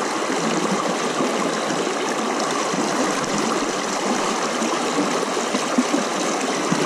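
A fast river rushing over rocks and rapids: a steady, even sound of flowing water.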